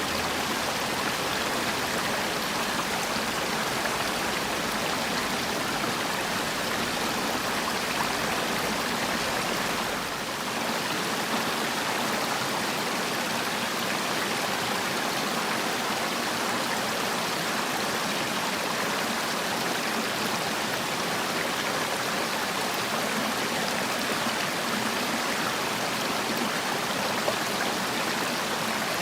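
Mountain stream water rushing and splashing steadily over rocks.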